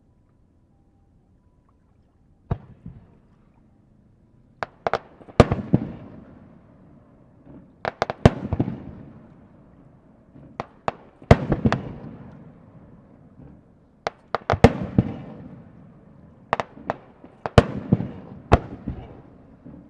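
Aerial firework shells bursting: sharp bangs in quick clusters of two to five, each followed by a low rolling rumble. It opens with about two and a half seconds of quiet before the first bang.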